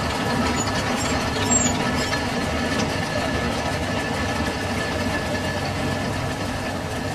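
Lathe running steadily with a large multi-groove V-belt pulley spinning in its chuck: an even mechanical hum with a faint constant high whine.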